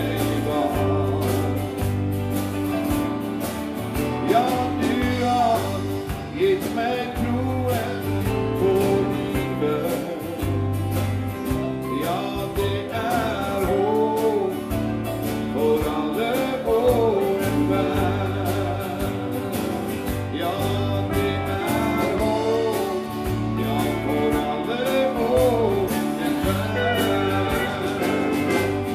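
Live country-gospel band playing: strummed acoustic guitars, drum kit and bass, with a steel guitar's gliding notes weaving over a steady beat.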